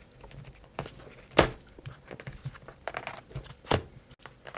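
A tightly packed retail box being worked open by hand: the packaging rustles and crinkles, with two sharp snaps, one about a second and a half in and one near the end.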